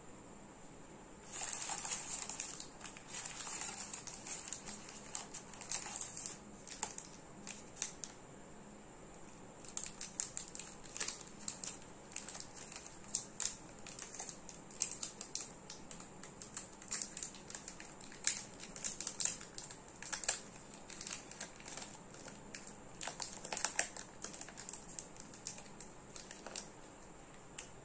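Plastic chocolate wrapper crinkling and crackling as it is unwrapped by hand, in irregular bursts of small crackles that start about a second in, pause briefly near the middle, and stop shortly before the end.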